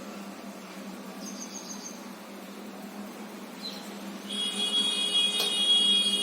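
Cockatiels calling: a short high trill about a second in, then a long steady call from about four seconds in, the loudest sound, over a low steady hum.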